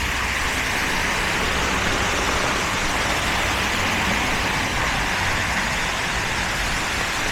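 Steady road traffic on a snowy city street: an even wash of tyre noise with a low rumble underneath.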